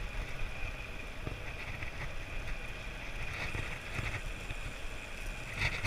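Wind buffeting the microphone of a camera on a moving bicycle, with a steady low rumble and road noise from riding, and a brief sharper burst near the end.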